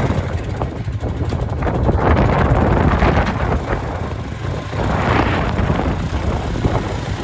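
Polaris Sportsman Big Boss 6x6 ATV's 570 cc single-cylinder engine running while the ATV drives slowly. The engine gets louder as the throttle opens about two seconds in and again about five seconds in.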